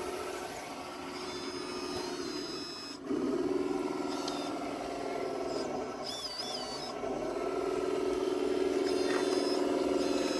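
Electric drive and hydraulic pump of a radio-controlled scale construction machine, whining steadily as it works. The whine gets louder about three seconds in and again about seven seconds in, as the machine takes on load.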